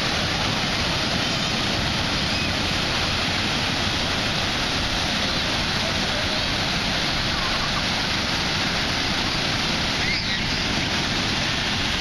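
Steady rush of ocean surf breaking on the beach, with heavy low rumble from wind on the microphone.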